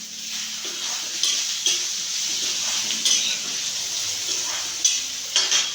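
Potatoes sizzling in hot oil in a pan, seasoned with spices and salt, with a spatula scraping and knocking against the pan several times as they are stirred.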